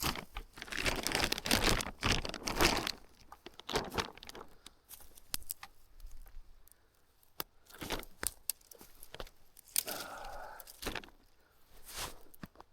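Irregular dry crunching, crackling and rustling of forest-floor litter (dry leaves, twigs, pine cones), with scattered sharp cracks, loudest in the first few seconds. A brief pitched sound comes about ten seconds in.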